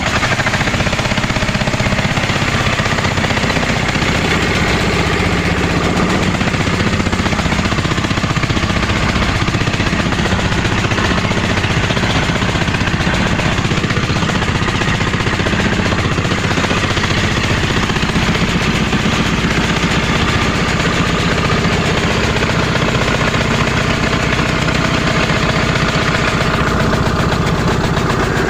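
Twin engines of a motorized outrigger fishing boat running steadily under way, a loud continuous drone. The owner says the engines are worn out for lack of maintenance.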